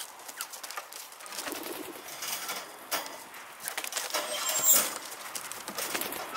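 Ancona bantam hens giving soft, low calls, mixed with rustling and sharp clicks. A louder sudden sound comes about two thirds of the way in.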